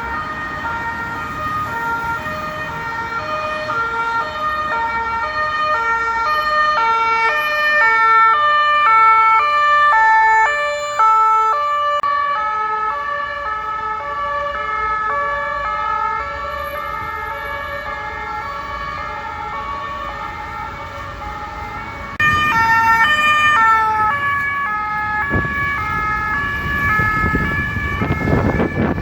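French police two-tone sirens switching back and forth between two pitches, more than one siren sounding at once, over traffic noise. The sirens get suddenly louder about two-thirds of the way in, and the noise of a passing vehicle swells near the end.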